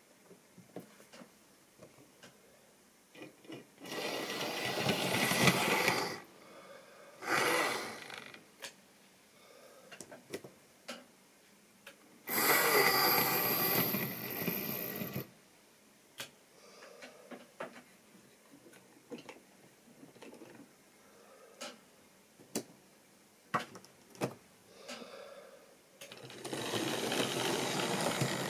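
Model railway locomotives running past close by: small electric motors whirring and wheels clicking over the track. There are several loud passes of a few seconds each, one with a steady high whine, and scattered light clicks in between.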